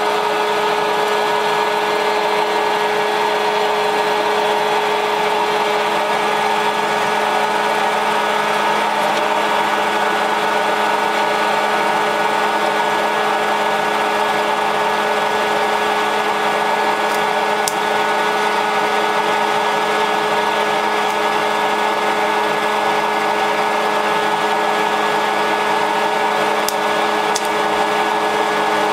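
Electric oil-free snack maker running with a steady motor hum while the popcorn kernels in its drum heat up, before most of them pop.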